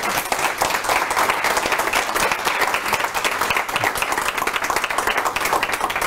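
Audience applauding: many hands clapping in a dense, steady patter.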